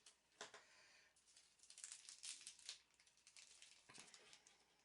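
Faint rustling and scattered light clicks of makeup-brush packaging being handled and opened.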